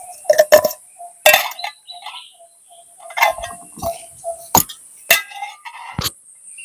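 A series of sharp clinks and knocks at irregular intervals, some with a brief ring, like hard objects being handled and set down, over a steady high hiss.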